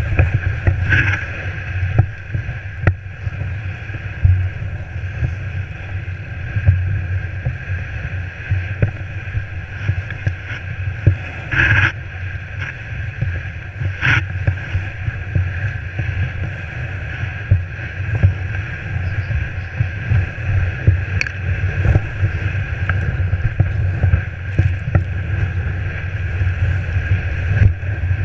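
Steering-wheel snow sled sliding and bumping through snow: a steady low rumble of the runners with many small knocks, and two brief sharper sounds near the middle.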